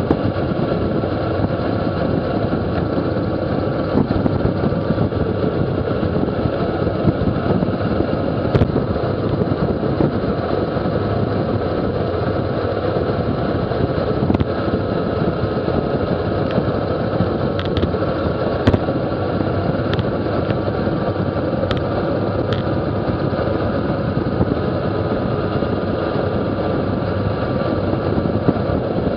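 Steady loud wind rush over the microphone of a bike-mounted camera on a road bicycle coasting downhill at about 40 mph, mixed with tyre noise on asphalt. A few sharp clicks come through now and then.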